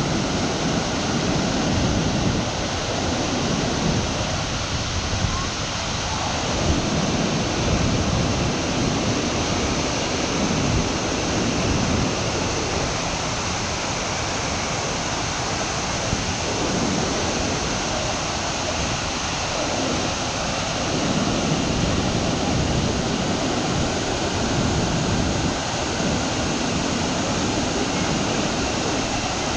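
River cascades and a waterfall, white water rushing over rock ledges: a steady, loud rush of water.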